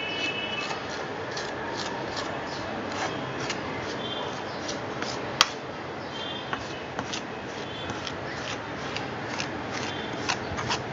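A dry, crumbly flour-and-sugar ladoo mixture being mixed in a bowl: a run of short, irregular scraping and rustling strokes, with one sharp click about five and a half seconds in.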